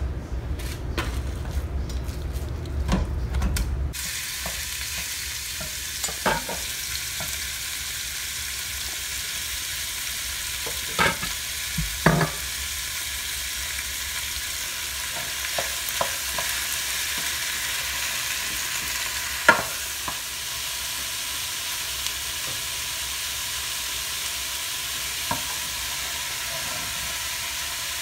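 Ground turkey frying in olive oil in a copper-coloured square pan: a steady sizzle, with a few sharp knocks of a wooden spoon breaking up and stirring the meat. The first few seconds hold low rumbling and clicks before the sizzle settles in.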